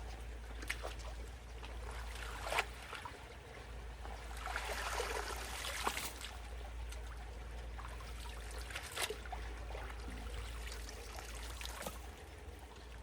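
Water trickling and running through a debris-clogged culvert. A few sharp cracks or knocks come at irregular intervals, and the water swells louder about four to six seconds in.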